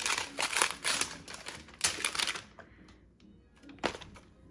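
Gift-wrapping paper being torn open in a rapid run of rips and crinkles, then quiet apart from a single sharp tap near the end.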